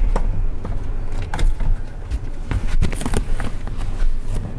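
Several sharp knocks and clicks over a low rumble, from a person moving from the driver's seat of an Isuzu MU-7 to its rear door and opening it, with a brief rattle about three seconds in.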